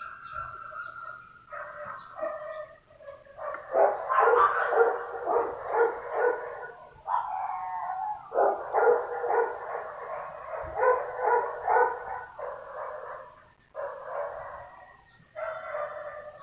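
A dog whining and yapping again and again: first a drawn-out whine, then quick repeated yaps for several seconds, with a couple of brief pauses.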